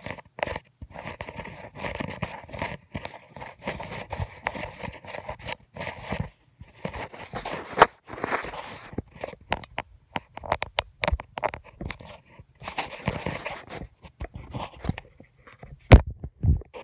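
Irregular rustling and crackling close to the microphone, broken by many sharp clicks and brief drops to silence, with one loud knock near the end.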